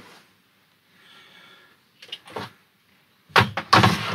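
The plastic frame of a camper-van window blind cassette being handled on a table: a faint scrape about a second in, a few light clicks, then a louder clatter and knock near the end.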